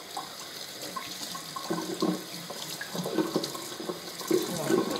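Kitchen tap running into a stainless steel sink, water splashing over pieces of tripe as they are rinsed by hand, more splashing from a bit under two seconds in.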